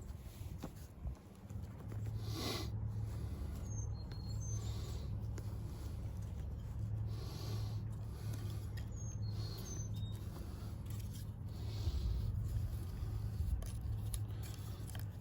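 Bow drill in use: a wooden spindle grinding and squeaking in its fireboard socket as the bow is sawed steadily back and forth, swelling with each stroke about every two seconds. This is the burn-in of a new socket. A few short bird chirps come over it.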